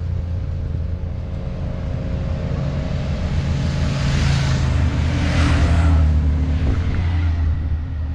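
Motorcycles riding past one after another on the race course: a steady low engine drone, with two rushing pass-bys about four and five and a half seconds in.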